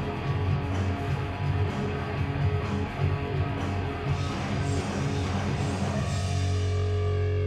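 Live rock band playing loud, guitar-driven music with drums; about six seconds in, the busy playing gives way to a sustained, ringing chord.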